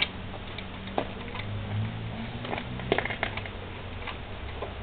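Light, irregular clicks and knocks of tools and metal parts being handled on a moped engine. There is a sharp click at the start and about a second in, and a quick cluster of them about three seconds in, over a low steady hum.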